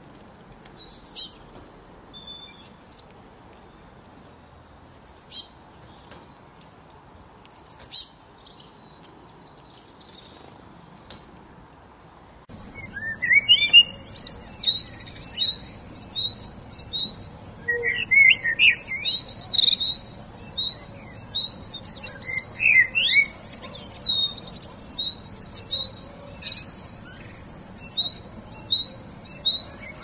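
Small songbirds chirping: a few short, high chirps spaced out over the first dozen seconds, then an abrupt change to a busier mix of several birds singing and calling, with repeated trills and quick rising and falling notes.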